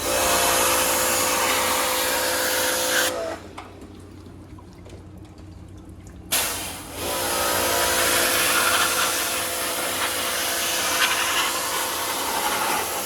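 Electric pressure washer spraying water, the spray hissing over a steady motor hum. It cuts out about three seconds in and starts again about three seconds later.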